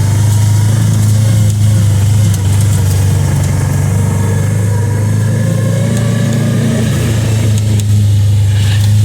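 Engine of a Kawasaki Teryx 800 side-by-side, a V-twin, running steadily while driving along a trail, its pitch rising and easing slightly.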